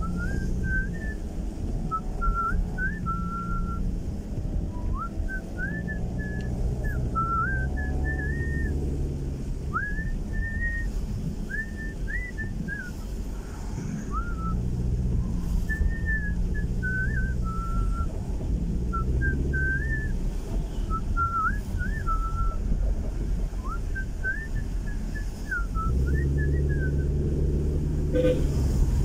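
A person whistling a tune in short melodic phrases with quick pitch slides, over the steady hum of the car's engine and road noise inside the cabin.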